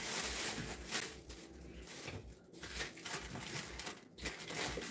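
Plastic deli wrapping crinkling and rustling as a stack of sliced American cheese is unwrapped by hand, with two brief pauses.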